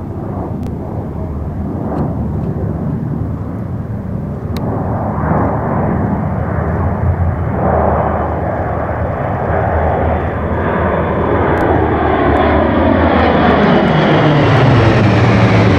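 Three P-38 Lightnings in formation, each with twin Allison V-1710 V-12 piston engines, running as they fly past. The engine sound grows steadily louder as they approach and is loudest near the end as they pass overhead.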